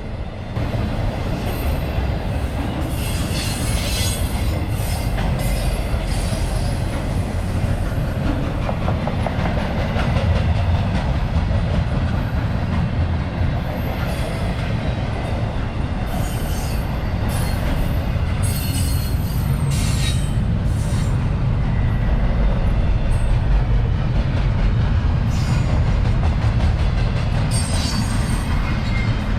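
A CSX intermodal freight train rolling past at track speed: a steady heavy rumble of steel wheels on rail, with scattered clicks and brief high wheel squeals.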